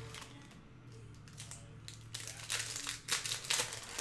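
Trading-card pack wrappers crinkling and rustling as packs are handled and opened, with bursts of crackling, thickest in the second half.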